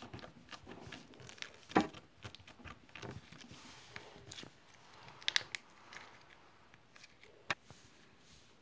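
Small piece of slime being squeezed and pulled by hand, giving irregular sticky clicks, pops and crinkling noises, with sharper pops about two seconds in, around five seconds and near the end.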